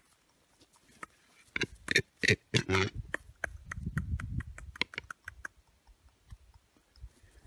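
Western capercaillie cock in display, giving a series of dry clicks at about five a second midway through. A few louder clacks come just before the run.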